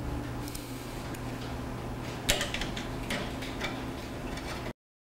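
Metal rack parts being handled as a bracket is lined up on the sign: scattered light clicks and clinks with one sharp knock a little over two seconds in, over a steady low hum. The sound cuts off suddenly near the end.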